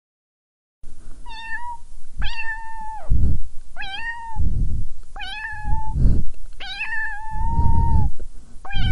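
Domestic cat meowing about six times, starting about a second in. The meows rise and fall, the fifth held longest, with bursts of low rumble between them.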